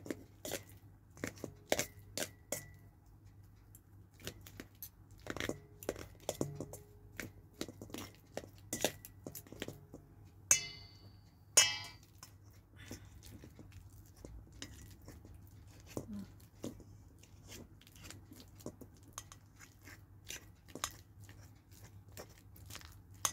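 A metal fork mashing ripe banana in a stainless steel bowl: irregular clicks and scrapes of the tines against the bowl, with two short ringing clinks a little over ten seconds in. The tapping thins out in the second half.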